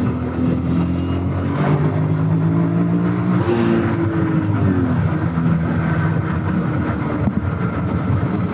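Golf 3's turbocharged VR6 engine pulling under acceleration, heard from inside the cabin. A high turbo whine climbs over the first two seconds and holds. At about three and a half seconds the engine note and the whine drop away as the throttle comes off, and the car settles into a steady cruise.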